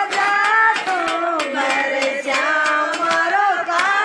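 A group of women singing a folk wedding song together, with steady hand clapping about three times a second.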